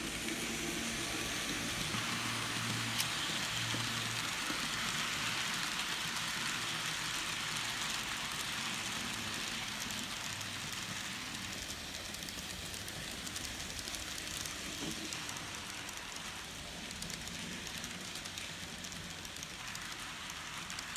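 Kato N scale Southern Pacific GS-4 4-8-4 model locomotive running on track: a steady, crackly rolling hiss of its small wheels on the rails, a little quieter from about ten seconds in.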